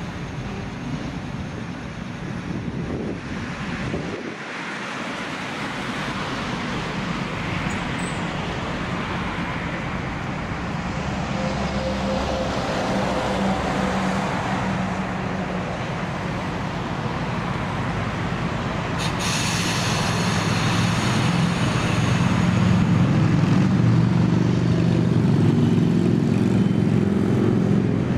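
Narrow-gauge diesel locomotive's engine running steadily, growing louder in the last third as it is opened up to move off. A short hiss of air comes in about two-thirds of the way through.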